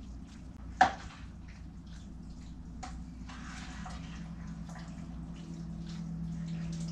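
Spoon stirring a pot of watery stew: wet sloshing with small clicks of the spoon against the pan and one sharp knock about a second in. A low steady hum runs underneath and grows a little louder toward the end.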